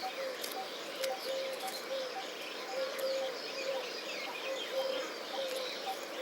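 Weaverbirds chirping and chattering with quick, scratchy high calls, over a short low note repeated about twice a second.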